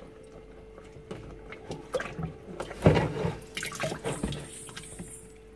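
A hand pulling a wet cloth out of the clogged drain outlet of a washing machine's spin-dryer tub, through standing water: irregular splashing and dripping with a few sharp clicks and knocks in the middle, over a faint steady hum.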